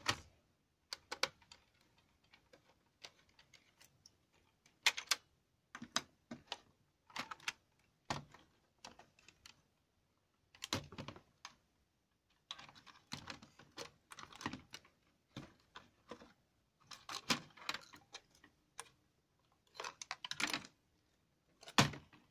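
Irregular clicks, taps and light clatter of plastic and metal laptop parts being handled while a Compaq Presario CQ57 is taken apart and its motherboard is lifted out of the case.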